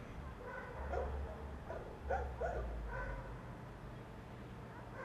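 A dog barking, a quick run of about five short barks between about one and three seconds in, over a low rumble.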